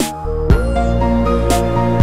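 Electronic background music with a steady beat: held synth notes over a deep bass that comes in just after the start, with a drum hit about once a second.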